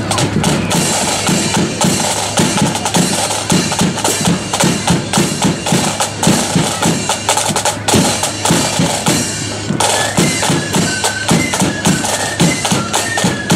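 Marching flute band playing: rapid snare drumming over a steady bass drum beat, with a flute melody coming in about ten seconds in.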